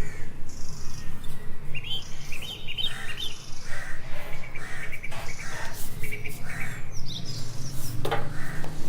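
Small birds chirping repeatedly over a steady low mechanical hum that pulses about three or four times a second.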